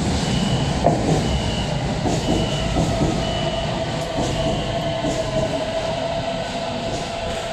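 Beijing Subway BDK03 metro train at the platform: door-closing warning beeps sound five times, about one a second. Then the train's TGN53D.JP1 IGBT VVVF inverter starts a steady whine that climbs slowly in pitch as the train begins to pull away.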